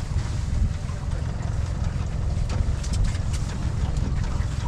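Steady low rumble on a small boat, with a few faint clicks a little past halfway as chicken is packed into a crab pot's bait cage.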